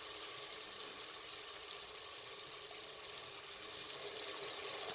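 Tomato-and-spice masala frying in oil in a pressure cooker, sizzling steadily with a few faint ticks near the end.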